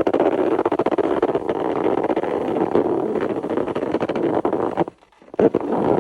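Snow creaking and crunching as it is pressed: a dense, continuous run of fine squeaky crackles that breaks off briefly near the end and then starts again.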